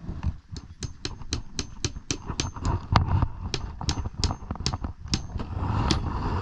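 Hammer striking nails on wooden decking: a quick run of sharp metallic taps, about four a second, several leaving a brief high ring.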